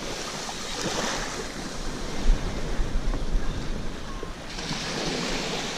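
Ocean surf washing and rushing, with wind buffeting the microphone and a short sharp sound about two seconds in.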